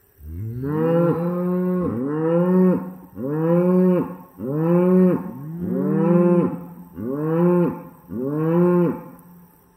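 Cow mooing over and over: a loud string of about eight calls, roughly one a second, each rising and then falling in pitch.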